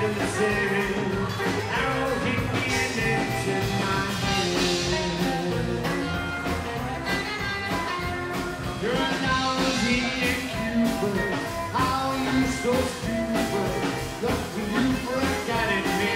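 Live rockabilly band playing: strummed acoustic guitar, plucked upright double bass and a drum kit, with a man singing lead.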